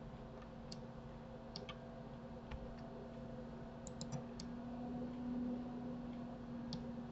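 Scattered computer mouse and keyboard clicks, about ten in all, with a quick run of four about four seconds in, over a steady low electrical hum.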